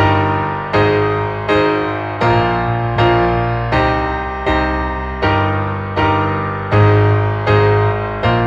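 Instrumental break of a pop ballad: piano chords struck evenly, about four every three seconds, each one ringing and fading before the next, over a deep bass.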